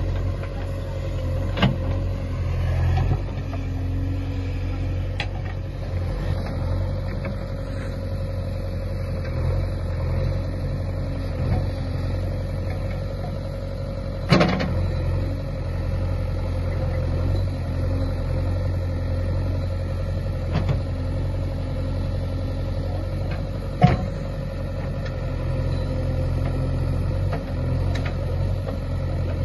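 JCB 3DX backhoe loader's diesel engine running steadily under load while the backhoe arm pushes soil, with a steady hum above the engine note. Three sharp knocks stand out: one near the start, one about midway and one a little after twenty seconds.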